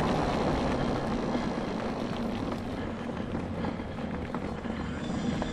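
Homemade all-wheel-drive off-road mobility scooter driving along a trail: a steady low hum from its drive together with rolling tyre noise, easing off a little in the first few seconds.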